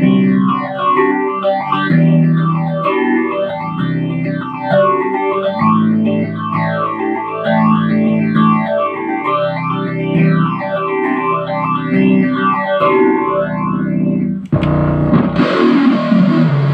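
Electric guitar played through a Zoom G5n multi-effects pedal, its tone swept up and down by a modulation effect about once every second and a half. About 14.5 s in it switches abruptly to a brighter, distorted patch.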